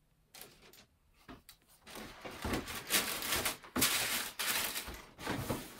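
Sneakers being handled, rustling with scattered light knocks, starting about two seconds in after a quiet moment with a few faint clicks.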